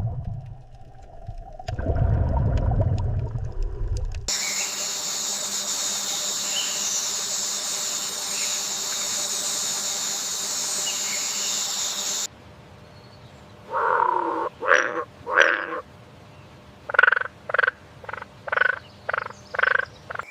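Animal calls with no speech. A low rumble in the first few seconds gives way to about eight seconds of a steady, high-pitched chorus. Then comes a run of about eight short, repeated croaking calls.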